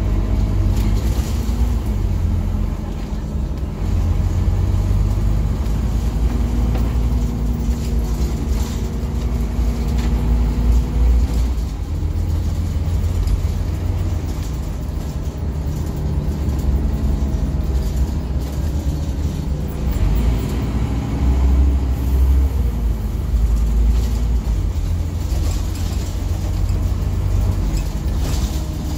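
Scania NewOmnicity city bus heard from inside the passenger cabin while under way: a continuous low engine and road rumble. A drivetrain note glides up and down several times as the bus speeds up and slows.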